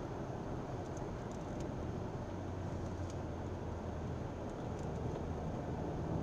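Car running at moderate road speed, heard from inside the cabin: a steady mix of engine hum and tyre and road noise as the car slows for a corner.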